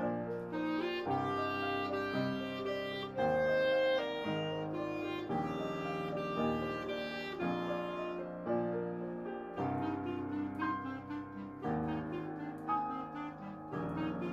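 Clarinet and piano playing together: the clarinet holds a melody of sustained notes over piano chords.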